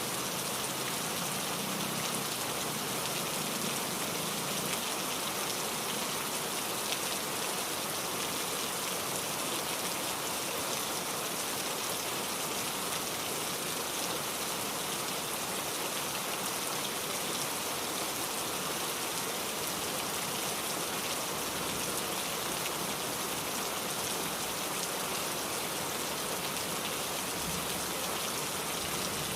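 Heavy rain falling steadily, an even hiss with no pauses and no thunder.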